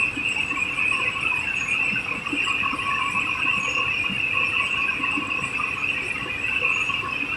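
Veneer mesh-belt roller dryer running: a steady, high-pitched whine with a fainter lower tone beneath it.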